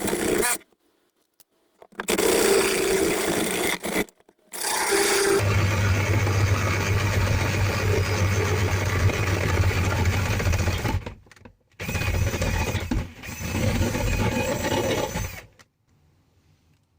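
Power tool running in several short runs that start and stop abruptly; the longest, in the middle, lasts about six seconds with a steady low hum under the noise.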